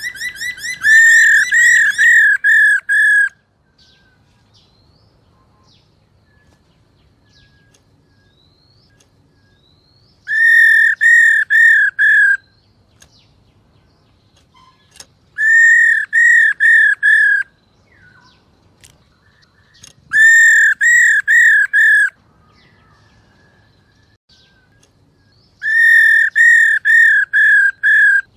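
Black-throated laughingthrush singing: five bursts of loud, clear whistled notes, each burst five to seven identical notes over about two seconds, with pauses of a few seconds between.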